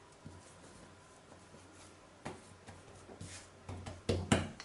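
Wooden rolling pin rolling out soft cookie dough on a silicone pastry mat: faint rubbing at first, then a few light knocks and rolls in the second half.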